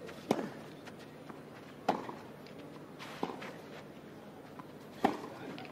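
Tennis ball struck by rackets in a baseline rally on clay: four sharp hits about a second and a half apart, each with a short echo.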